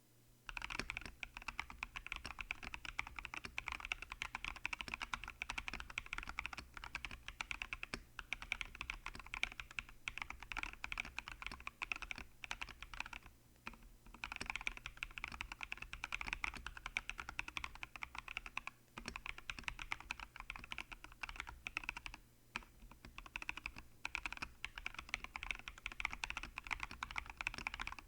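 Fast, continuous typing on a Tom 980 mechanical keyboard with lubed Akko CS Lavender switches, XDA-profile keycaps and holee-modded stock stabilizers. The keystrokes start about half a second in and run densely, broken by a few short pauses.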